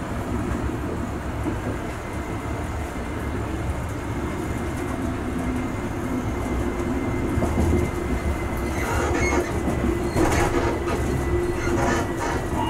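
Passenger train running along the track: a steady rumble, with quick clicks and clatter from the wheels in the last few seconds.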